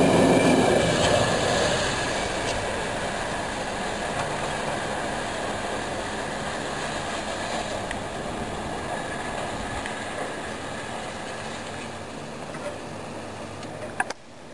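Freight train wagons rolling past on the rails, the rumble fading steadily as the end of the train moves away. A sharp click near the end.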